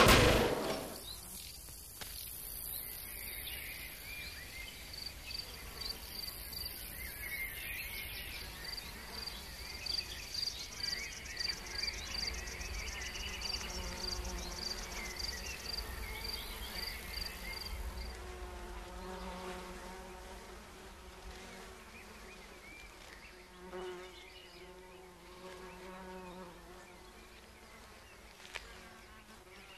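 Insects chirping: a regular high chirp about twice a second over a faint buzz, fading out about halfway through. Fainter, lower pitched sounds follow in the second half.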